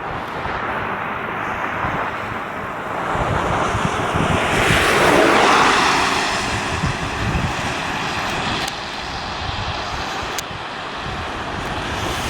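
Wind buffeting the microphone throughout, with a vehicle passing on the road about four to seven seconds in, its noise swelling and then fading away.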